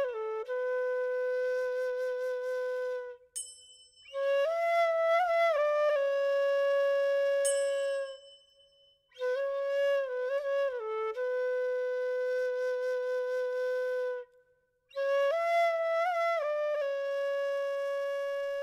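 Solo flute playing slow phrases, each a short ornamented figure settling into a long held note, four phrases with brief pauses between them. Two faint high chimes sound between the phrases, about four and seven and a half seconds in.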